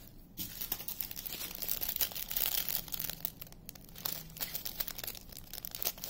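Small plastic bags of diamond-painting drills crinkling as they are handled, starting about half a second in.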